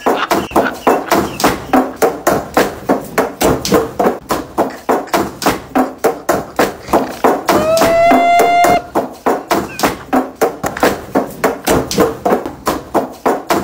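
Several long wooden pestles pounding soft white dough in a large wooden mortar: a steady run of dull thuds, about four a second. About eight seconds in, a voice holds one long note for about a second over the pounding.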